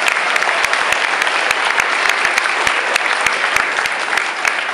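Loud applause from a large audience of schoolchildren and adults, many hands clapping at once.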